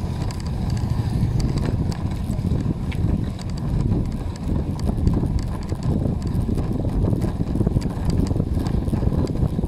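Wind buffeting the microphone and bicycle tyres rumbling over a ridged concrete road, with frequent light clicks and rattles.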